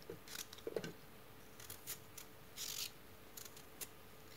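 A raw carrot being cut into chunks over a mixing bowl: faint, crisp snaps and clicks as pieces come off and drop onto the chopped vegetables, with a short hiss about two and a half seconds in.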